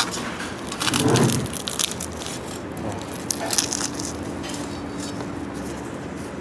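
Crisp tandoori roti being torn apart by hand, crackling and crunching, with a louder rustle about a second in.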